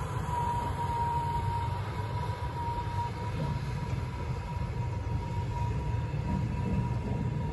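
KamAZ army truck's diesel engine running as it drives away across a pontoon bridge, a steady low rumble, with a continuous high-pitched whine over it.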